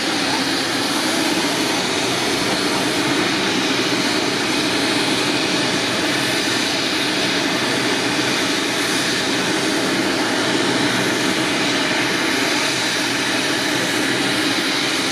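Medevac helicopter (Ornge Leonardo AW139) running steadily, its turbine engines and rotor giving a dense even rush of noise with a thin steady high whine on top.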